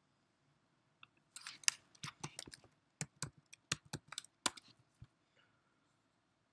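Computer keyboard typing: a quick, uneven run of keystroke clicks lasting about four seconds, then stopping.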